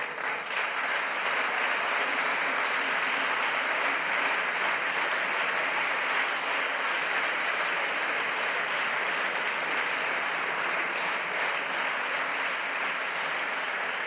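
Sustained applause from a chamber of seated parliamentary deputies, a dense, steady clatter of many hands that eases slightly near the end.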